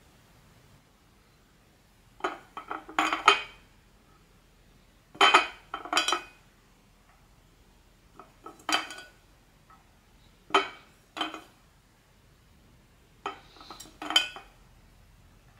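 Small hard plastic pieces clicking and clinking as they are handled in short bursts, about six groups of taps a couple of seconds apart: blind-bag toy figures and their packaging being unpacked.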